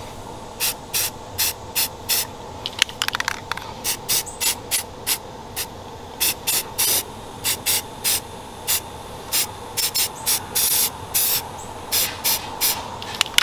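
Aerosol spray-paint can sprayed in many short, quick spurts of hiss, about two a second, as green camouflage paint is dabbed on in bursts.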